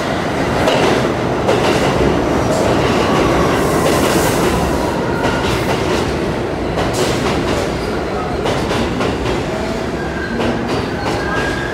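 R62A subway train running into the station along the platform: a loud, steady rumble with rapid clicking of the wheels over the rail joints. A faint high tone comes in near the end.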